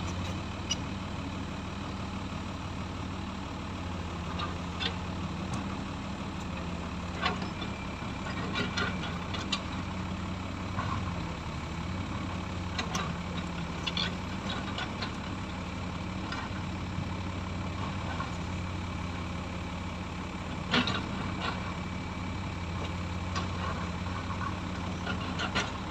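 Front loader's engine running steadily with a low hum, with short sharp clanks now and then, the loudest about three-quarters of the way in.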